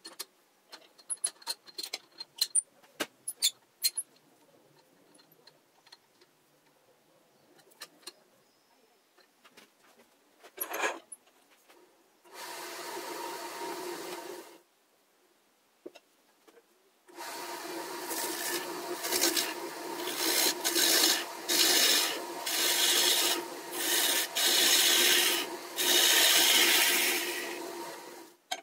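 Light clicks and knocks of a magnolia blank being handled and fitted into a lathe chuck, then a wood lathe spinning the blank while a tool rubs and rasps against the spinning wood in repeated pulses about a second long, loudest over the last ten seconds.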